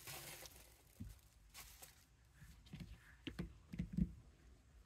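Faint scattered taps and clicks of nail-stamping plates and polish bottles being handled and set down on a cloth surface, the strongest near the end.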